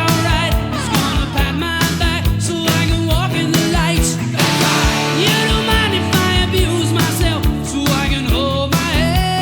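Rock music with a steady drum beat and electric guitar.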